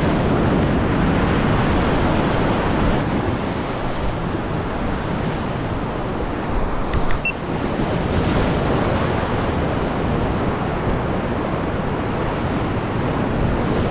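Ocean surf breaking and washing over shoreline rocks in a steady rush, with wind rumbling on the microphone.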